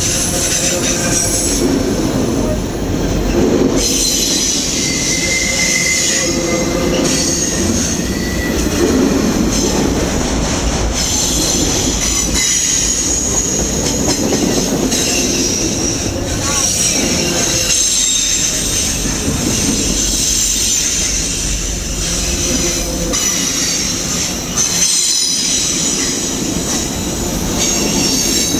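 Freight train cars, autoracks and boxcars, rolling past close by. Their steel wheels make a steady rumble and clatter on the rails, with a high, wavering wheel squeal over it.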